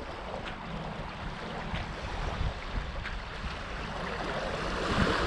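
Small waves washing onto the shore, with wind on the microphone; a wave swells louder near the end.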